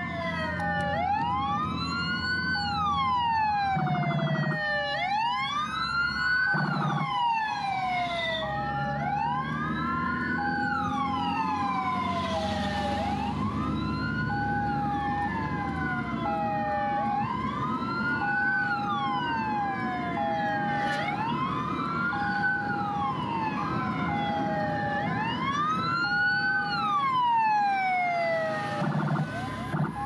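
Emergency vehicle sirens sounding together. A wail sweeps up and down about every two seconds while a hi-lo two-tone switches back and forth between two pitches about once a second, over a low traffic and engine rumble.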